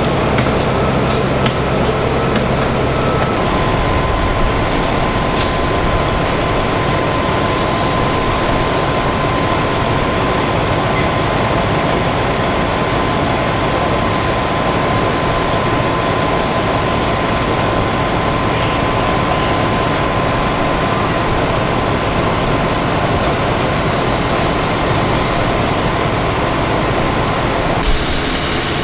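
Fire truck's diesel engine running steadily: a loud, even rumble with a steady whine above it. The sound shifts abruptly about three seconds in and again near the end.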